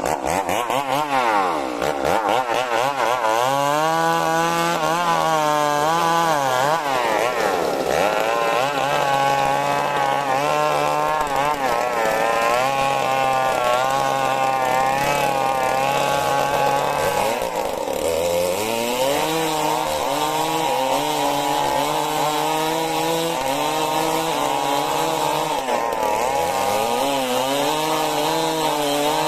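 Stihl MS 382 two-stroke chainsaw running at high throttle while cutting majau wood lengthwise. Its pitch dips several times as the engine bogs under the cut and then climbs back.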